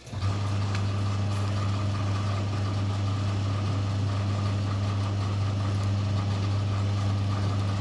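A steady low hum that starts abruptly right at the beginning and holds unchanged.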